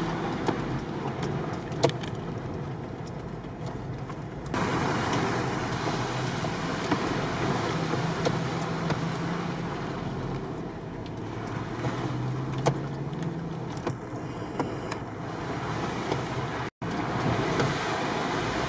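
Off-road 4x4 running with its engine humming and tyres working along a muddy, waterlogged dirt track, heard from inside the cabin. The sound changes abruptly about four and a half seconds in and cuts out for an instant near the end.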